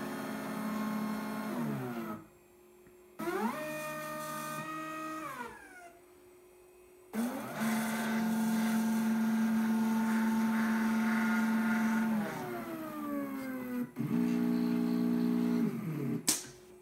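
Gear-drive stepper motors of a 3D-printed six-axis robot arm whining as the arm moves. There are four moves with short pauses between them; in each the whine rises in pitch as the motors accelerate, holds steady, then falls as they decelerate. A sharp click comes near the end.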